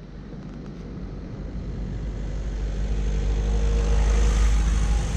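A motor vehicle approaching and passing close by: a low engine and tyre rumble that grows steadily louder over about four seconds and falls away near the end.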